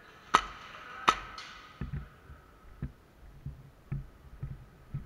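An airsoft pistol fired twice, two sharp cracks less than a second apart, the second followed by a small click. These are followed by dull footfalls on a concrete floor, about two a second.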